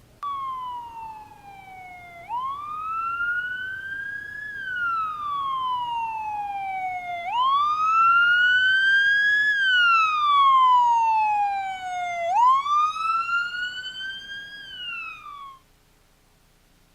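Siren wailing, its pitch sweeping slowly up and down in cycles about five seconds long: three rises in all, then it cuts off suddenly near the end.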